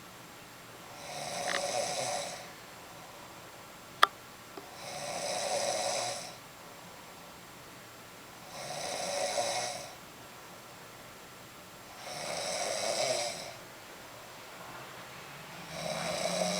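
A sleeping woman snoring in slow, regular breaths, a snore about every three and a half seconds, each lasting a second or so. One sharp click sounds about four seconds in.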